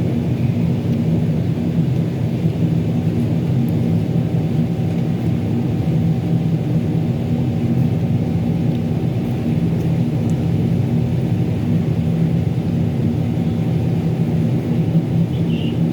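Steady, unbroken low hum of a running machine, a dense rumble with a few fixed hum tones in it.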